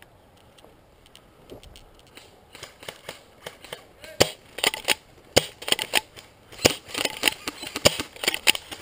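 Footsteps crunching and snapping through dry bracken and twigs. Irregular sharp cracks, roughly half a second to a second apart, begin about two and a half seconds in and grow louder.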